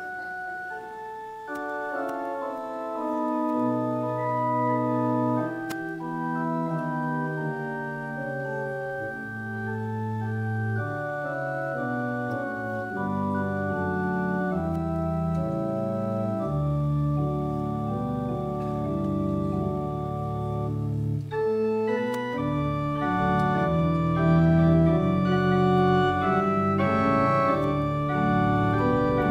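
Electronic keyboard on an organ voice playing a slow instrumental piece of held chords, with a brief break about twenty-two seconds in.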